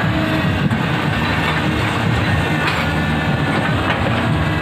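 Komatsu PC200 hydraulic excavator's diesel engine running under load as the machine swings and moves, with clatter from its steel crawler tracks.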